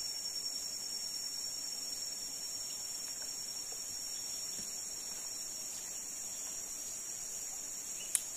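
Steady high-pitched drone of insects, unchanging throughout, with one short sharp click near the end.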